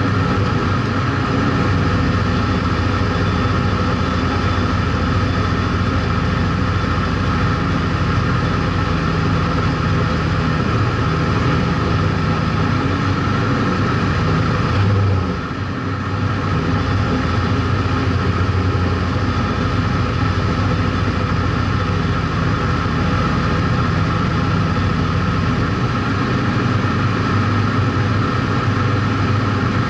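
Street stock race car's engine idling steadily, heard from inside the caged cabin, with a brief dip in level about halfway through.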